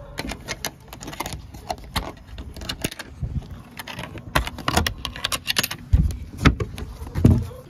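A metal carabiner clinking and clicking against a door hasp as it is unhooked, with scraping and knocking on the wooden coop door, including a few dull knocks near the end.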